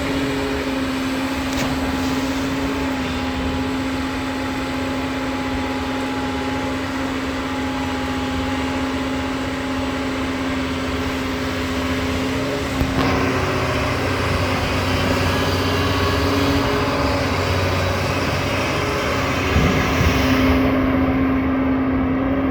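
Doosan long-arm excavator's diesel engine running steadily under working load, with a constant droning tone, and a sharp knock partway through.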